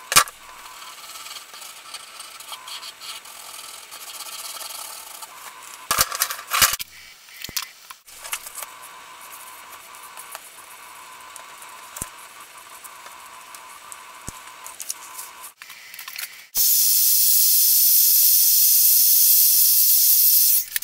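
Tabletop handling noise with scattered clicks, then a hand-held electric blower switches on near the end and runs with a loud, steady hiss for about four seconds, drying a freshly brushed coat on a paper card.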